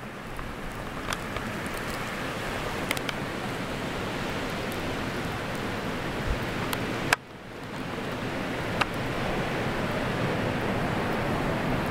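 Wind of a snowstorm blowing steadily, a rushing noise that grows slowly louder. A few faint clicks, and one sharp click about seven seconds in, after which the noise drops briefly and builds again.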